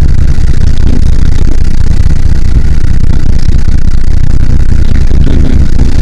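Wind buffeting a camera microphone on an open boat deck: a loud, steady, unpitched rumble.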